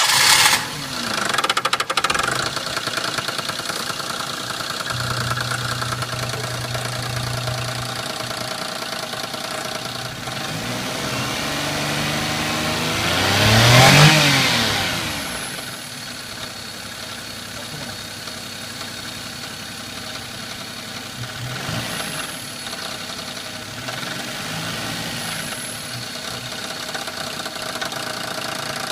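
Daihatsu Move's VVT engine idling with a rattle near idle, which the owner takes for a variable valve timing fault. It is revved up once, peaking about halfway through and falling back to idle, then blipped lightly twice near the end.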